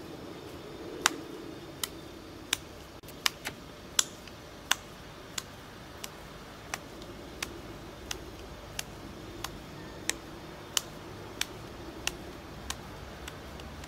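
A ball of minced meat slapped from palm to palm, a steady run of about twenty sharp wet slaps roughly one and a half a second, pressing the mince firm into a meatball.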